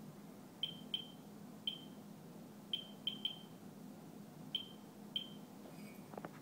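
Geiger counter survey meter with a pancake probe, chirping once for each detected count: about eight short, high chirps at uneven, random intervals, a low count rate.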